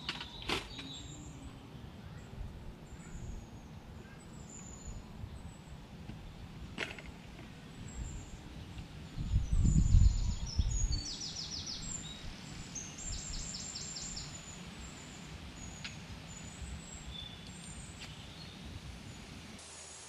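Outdoor campsite ambience: small birds chirping on and off, with a couple of quick trills about halfway through. Underneath is a low rumble that swells for a second or two around the middle, and there are a few light knocks near the start and one a third of the way in.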